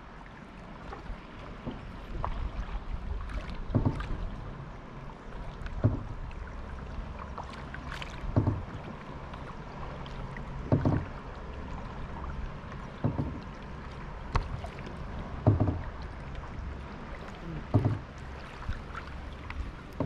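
Kayak paddle strokes in calm water, a short sharp stroke about every two to two and a half seconds over a steady low background.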